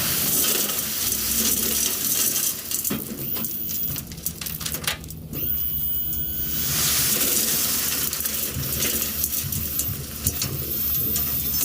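Gravel pouring out of a tipped dump trailer bed, a dense rattle and clinking of stones that thins out briefly twice, over a steady low hum.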